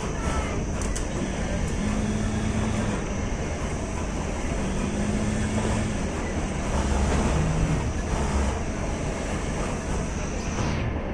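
Steady mechanical din of a garment factory floor of industrial sewing machines running, with a steady high whine throughout and a lower machine hum that comes and goes a few times.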